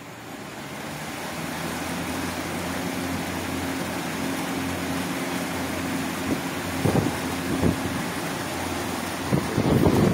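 Air cooler's 18-inch single-phase exhaust fan motor with an iron blade, swelling up to speed over the first couple of seconds and then running steadily with a hum and a rush of air. A few knocks come about seven seconds in and near the end.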